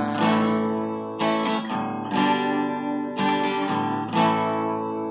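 Acoustic guitar strummed on an A major chord in a repeating down-down-up-down pattern, the chord ringing between strokes.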